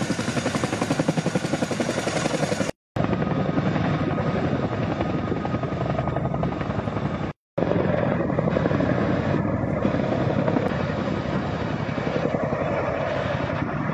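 Boeing CH-47 Chinook tandem-rotor helicopter running close by as it lifts off: a fast, even rotor chop over a steady turbine whine. The sound drops out abruptly twice, about three and seven and a half seconds in.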